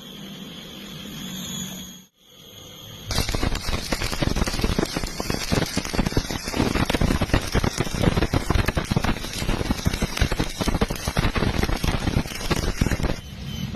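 Electric welding arc crackling and sputtering as a bead is run. It starts suddenly about three seconds in, continues for about ten seconds, and cuts off near the end.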